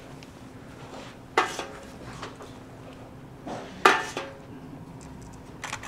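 A metal ladle clanking against a metal bucket: two loud clanks, about a second and a half in and near four seconds, with a few lighter clinks between and near the end.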